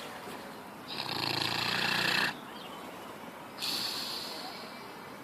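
Sleeping dog snoring in a pig-like snort-snore: one loud, rasping snore about a second in that lasts over a second, then a softer, airy breath a little after halfway.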